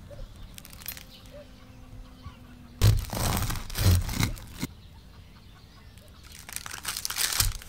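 Crackling of a crusty baguette's crust as a serrated bread knife saws through it, in two bouts: a longer one from about three seconds in and a shorter one near the end.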